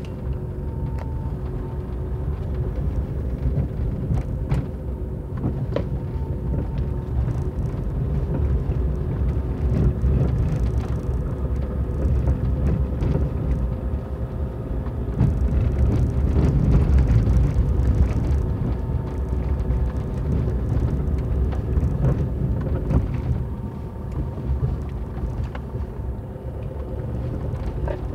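Car driving on a dirt road, heard from inside the cabin: steady low engine and road rumble, with occasional small clicks from the tyres on stones.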